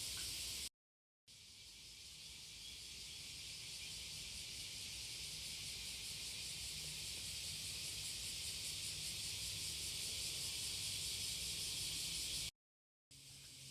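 Steady high-pitched insect chorus with a faint even pulsing. It is cut off twice by brief dead silences, and fades back in after the first.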